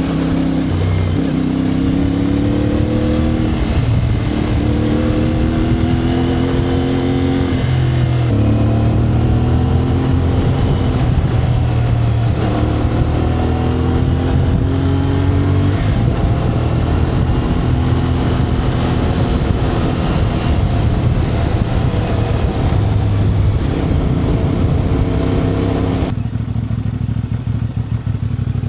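A vehicle engine running under load, its pitch climbing and then dropping several times in a row. About two seconds before the end the sound changes abruptly to a steadier low hum.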